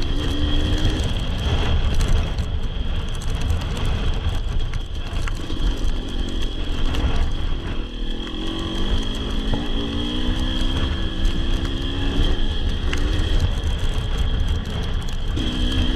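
Enduro dirt bike engine revving up and down as it is ridden along a rough track, the pitch climbing several times in the middle stretch. It is heard under a heavy, constant wind rumble on the microphone.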